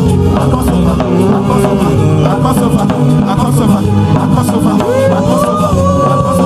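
Loud live praise music with a steady drum beat and percussion, and a sustained lead voice or instrument gliding between held notes.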